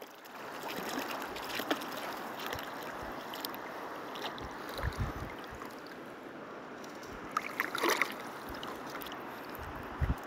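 Shallow river water sloshing and lapping, with small splashes and a brief louder splash about eight seconds in.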